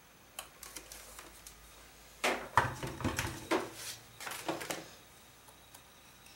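Handling clatter and rustle as a clothes iron is lifted off and set down and a Teflon pressing sheet is pulled off glitter vinyl on ribbon: a few light clicks, then a run of sharp knocks and crinkling, loudest about two and a half seconds in, dying away near five seconds.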